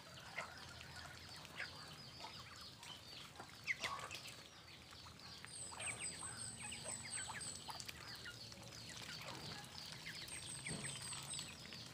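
Ducklings peeping in a constant stream of short, high chirps while a flock of Muscovy ducks and chickens pecks at rice bran on the ground, with scattered pecking and scuffling clicks, the loudest a little before 4 s. Twice a rapid run of very high notes sounds over them.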